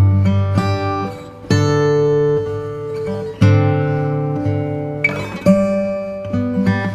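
Background music on acoustic guitar, with a new chord struck about every two seconds and each one fading away.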